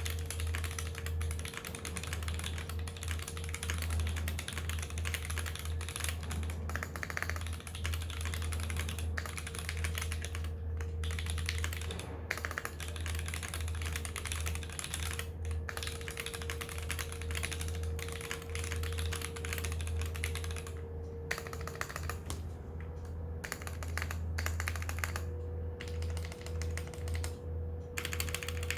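Continuous typing on a mechanical keyboard fitted with stock Durock Lilac tactile switches (nylon housing, POM stem) in a brass-plate Tofu65 case under GMK keycaps: a quick, dense run of keystroke clacks with a few brief pauses.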